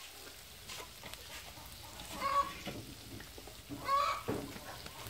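A chicken clucking, a short burst of calls about two seconds in and another about four seconds in, over a faint sizzle of chilli and garlic frying in a wok.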